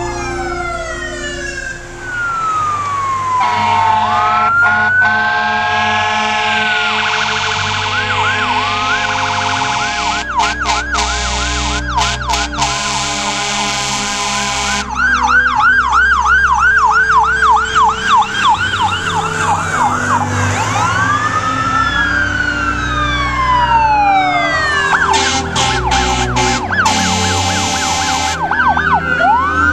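Fire apparatus sirens passing in convoy, overlapping wails and yelps, with the siren switching to a fast yelp about a third of the way in and to an even faster yelp around the middle. Long steady air-horn blasts sound over the sirens, and diesel engines rumble underneath.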